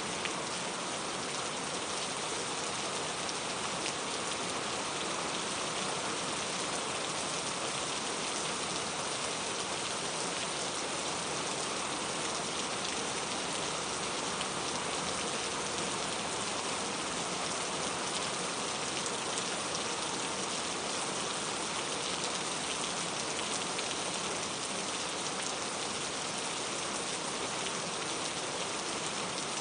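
Steady rain falling on a surface, an even hiss of many drops with no breaks or changes.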